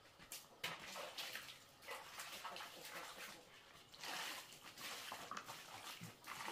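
Faint splashing and running water with scattered light knocks and clicks, as of hands handling things while washing, with a fuller rush of water about four seconds in.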